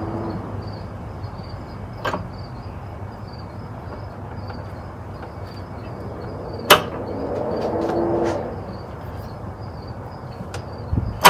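Hand work on an outboard's powerhead: a few sharp metallic clicks and knocks, the loudest just past halfway and near the end, with a scraping swell between them as the crank is turned by hand, over a steady low hum.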